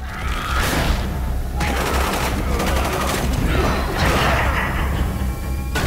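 Rapid gunfire sound effects from an animated action soundtrack, dense and continuous over a low rumble.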